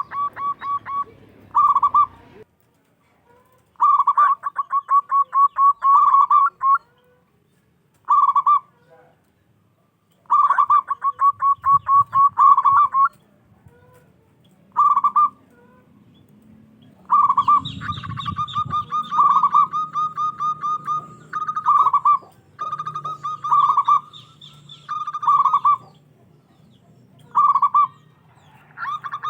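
Zebra dove (perkutut) song: repeated phrases of a fast stuttering run of short notes ending in one or two longer coos, with pauses between phrases early on and nearly continuous calling from about halfway through.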